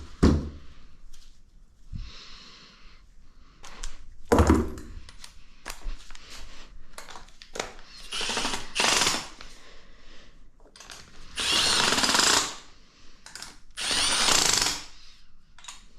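Handheld power tool run in three short bursts of about a second each, spinning nuts down onto the engine during reassembly. Before that come two metal clunks of parts being handled, about a second in and four seconds in.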